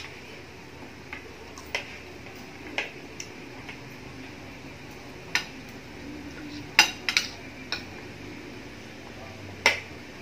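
Metal spoon and fork clinking and scraping against a ceramic dinner plate while eating. About ten sharp, irregular clinks, with a quick cluster about two-thirds of the way through and another loud clink near the end.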